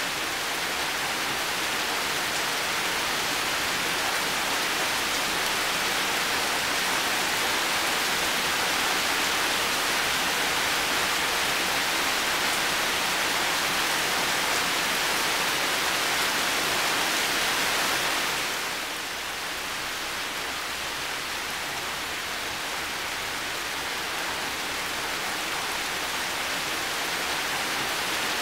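Heavy rain falling in a steady, dense hiss. About two-thirds of the way through it becomes slightly quieter and duller, then picks up again near the end.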